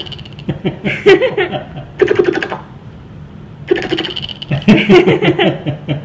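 A girl giggling and laughing in two bouts, about a second in and again near the end. Between the bouts come short, buzzy, rattling bursts, each about half a second long, recurring every couple of seconds.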